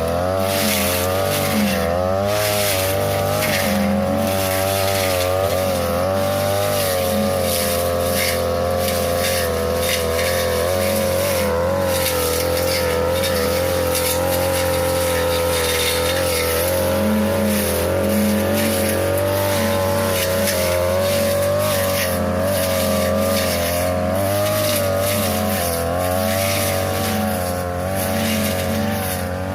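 42cc two-stroke brush cutter running at high revs, its engine pitch rising and falling as the throttle and load change, with many short sharp hits as the blade cuts through tall grass and woody saplings.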